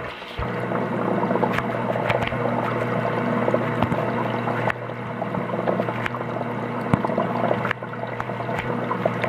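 Aquarium heard underwater: the tank's pump hums steadily with a noisy bubbling wash and a few sharp clicks.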